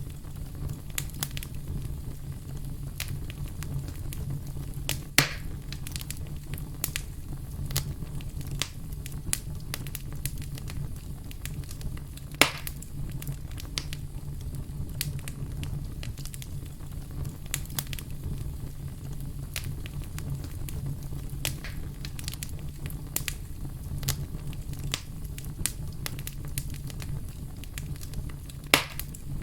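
Fire in a fireplace crackling continuously: many small ticks and snaps over a steady low rumble, with three sharper, louder pops about five seconds in, around twelve seconds and near the end.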